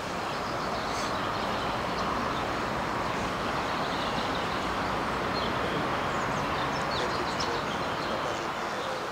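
Steady outdoor background noise: an even rush with faint, scattered high chirps above it.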